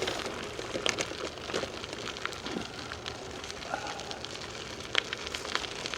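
Bicycle tyres rolling along a woodland trail: a steady hiss with scattered small clicks and crackles.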